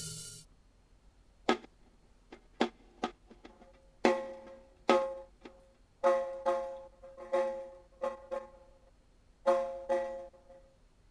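Drum loop separated into NMF components and processed by granulation, played back as sparse, uneven drum hits. Many of the later hits ring on with a pitched tone. A short burst of noise opens.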